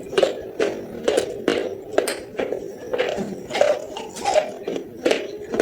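Close-miked crunching of baked clay pot pieces being chewed, with sharp cracks coming about twice a second.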